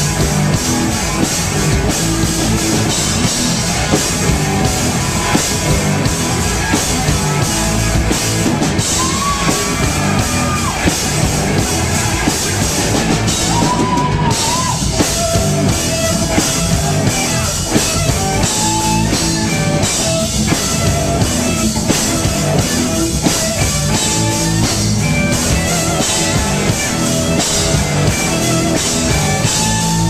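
Live rock band playing loud and steady, with drum kit, electric bass and electric guitar.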